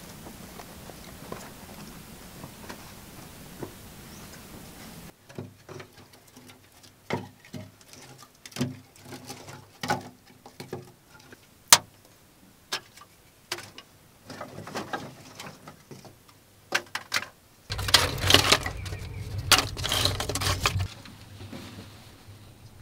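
A hand tool scraping and chipping at packed earth in irregular sharp strikes, roughly one or two a second. Near the end comes a few seconds of continuous, louder scraping. Before this there are a few seconds of steady hiss.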